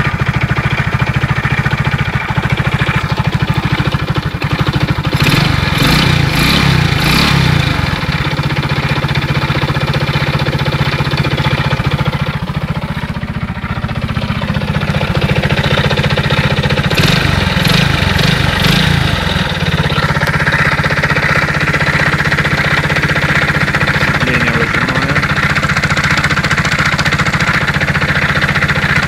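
Alfa Romeo engine idling with a knock in it, the revs briefly raised and dropped twice, about five seconds in and again near the two-thirds mark. The knock is the reason for a full teardown and inspection of the engine.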